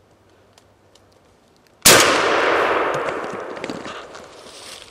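A single shotgun shot about two seconds in, its echo rolling away through the woods and fading over the next two seconds.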